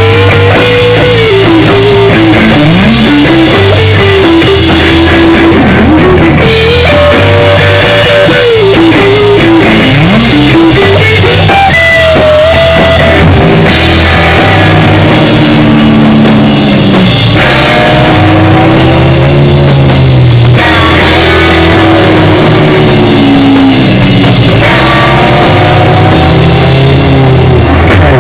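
Instrumental rock band playing live: electric guitar melody over bass and drum kit, loud throughout. The lead line slides and bends up and down in pitch in the first half, then settles into lower held notes.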